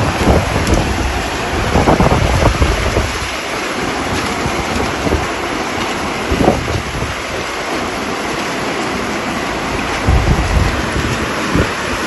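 Storm with heavy rain and strong wind, loud and steady, with gusts buffeting the microphone about two seconds in, near the middle and near the end.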